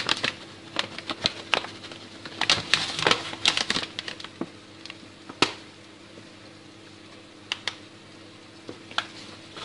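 Thin plastic bag of flour rustling and crackling as it is handled and tipped over a plate, in a dense run of sharp crackles for the first few seconds, then only a few scattered clicks.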